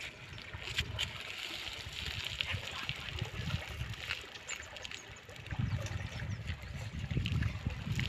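Hooked wallago attu catfish splashing at the surface close to the bank, the water sloshing and trickling with small scattered clicks, under a low uneven rumble that grows stronger in the second half.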